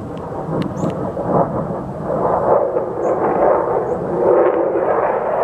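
Low-flying air show aircraft's engine roar, a deep rushing rumble that builds in loudness as the plane approaches.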